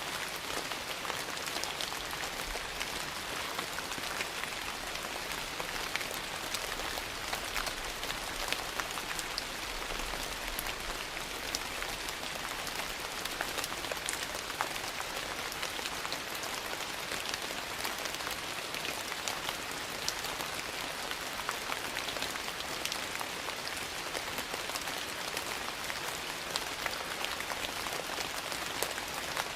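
Steady rain, an even hiss of falling drops with many small sharp ticks of drops striking scattered throughout.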